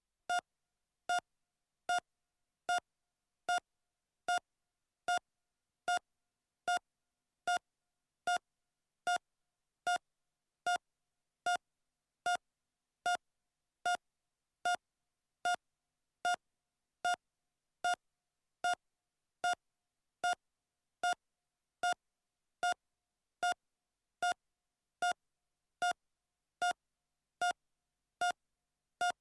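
Heart monitor beeping at a normal heart rate: a short, identical single-tone beep about every 0.8 seconds, roughly 74 beats a minute, perfectly regular.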